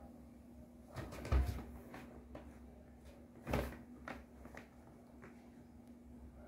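A kitten moving about inside a paper bag: the paper crinkles and rustles, with two dull bumps about a second and a half in and again about three and a half seconds in.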